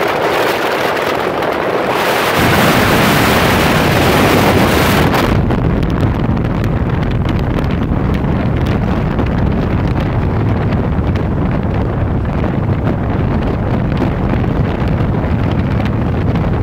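Wind buffeting the microphone of a phone filming from a moving motorcycle, over the motorcycle's engine and road noise. The hiss is loudest from about two to five seconds in, then gives way to a lower rumble.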